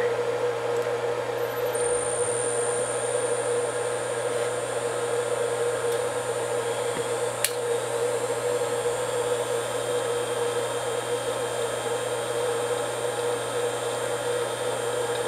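2.2 kW water-cooled CNC spindle, driven by a Huanyang VFD, spinning up toward about 10,000 RPM over a steady electrical hum. A faint high whine rises in pitch over a few seconds, then holds steady. There is a single click about halfway through.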